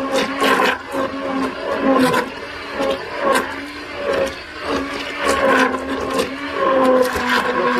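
Stick blender running in a pot of thick soap batter, a steady motor hum whose pitch wavers slightly as it is worked through the batter. Frequent sharp knocks and clicks sound over the hum.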